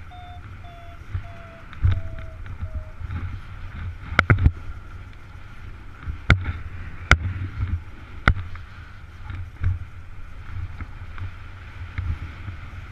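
Paraglider in flight: wind rushing over the camera microphone, with low buffeting rumbles and a few sharp clicks between about four and eight seconds in. During the first three seconds an electronic beeping tone steps slowly down in pitch.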